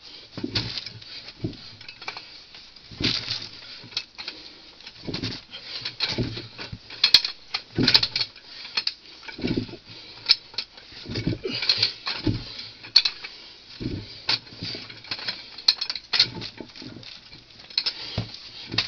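Hand bucket auger being turned at the bottom of a deep drilled hole in clay, making irregular scrapes and knocks, one or two a second, that come up out of the hole as the bucket fills with soil.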